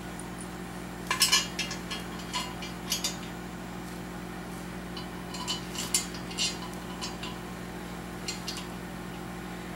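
Small metal parts clinking and tapping as they are handled, in a few quick clusters of light clicks: bolts and hardware being picked up and set on the engine during intake manifold installation.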